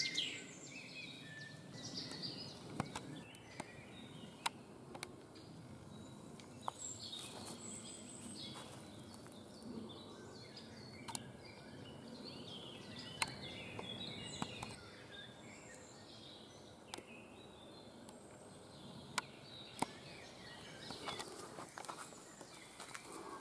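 Forest ambience: scattered bird chirps over a low, steady background rustle, with a few isolated sharp clicks.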